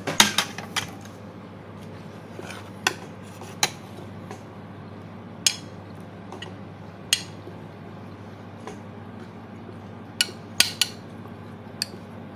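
Metal spoon clinking and scraping against a plate while scooping rice and meat. The knocks come irregularly, a quick cluster at the start, a few single ones in the middle and another cluster near the end.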